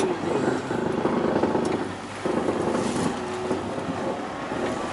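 A vehicle driving along, its engine running steadily under a continuous rumble of motion noise.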